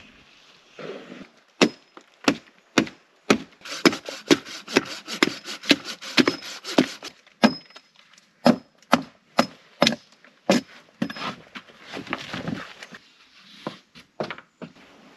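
Wood being chopped: a run of sharp, evenly spaced strikes, about two a second, that gives way near the end to rougher rubbing and scraping on wood.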